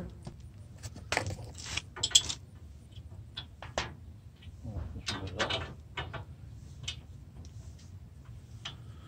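Small steel hardware clinking, rattling and scraping in irregular bursts as a pin and washer are worked by hand into a tailgate-lift bracket. The busiest handling comes about a second in and again around five seconds in.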